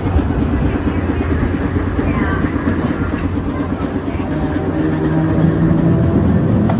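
Vintage streetcar rolling along the track, heard from inside through an open window: a steady rumble of steel wheels on the rails under a low electric motor hum.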